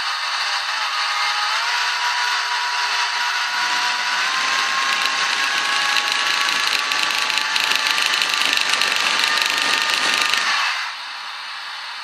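H0 model diesel locomotive running: a mechanical whir with a thin whine that climbs slowly in pitch. It turns rougher and fuller about a third of the way in, then cuts off sharply near the end.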